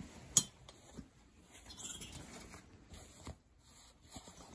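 Quiet handling of work-wear garments: fabric rustling, with a few sharp light clicks about a third of a second in and again later.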